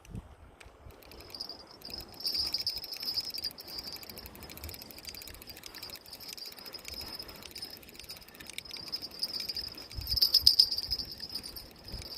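Night insects, cricket-like, trilling in a high, rapidly pulsing buzz that starts about a second in and swells louder twice, with a few low handling thumps near the end.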